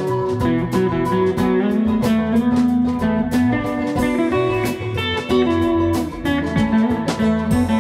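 Background music: a guitar-led track with a blues feel.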